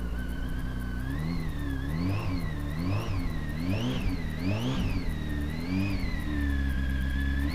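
Honda Hornet 900's inline-four engine idling through its newly fitted exhaust system, then blipped five times in quick succession, about one rev a second, before settling back to a steady idle.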